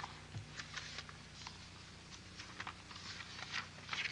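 Paper rustling and being handled at a lectern microphone: a scatter of short crackles and rustles, busiest and loudest near the end, over a faint steady hum.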